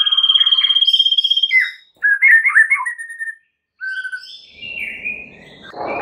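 White-rumped shama (murai batu) singing: a long, rapidly pulsed high whistle for the first second and a half, then a run of quick, varied whistled phrases broken by a short pause. A noisy hiss comes in near the end.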